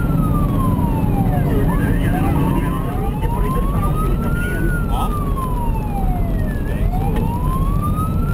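Fire brigade vehicle's wail siren rising and falling slowly, about one full cycle every four seconds, heard from inside the cab over steady engine and road noise.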